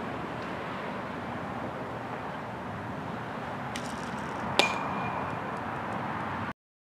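Batting practice with a spring-arm pitching machine: steady outdoor background noise, then about four and a half seconds in a single sharp metallic ping that rings briefly. The sound cuts off suddenly near the end.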